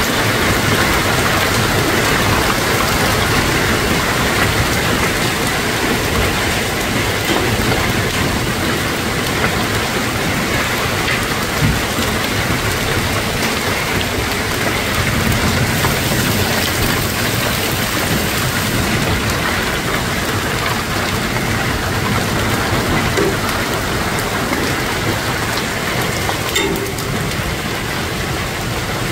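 Hailstorm: heavy rain and hail falling in a steady, dense hiss, with an occasional sharper hit.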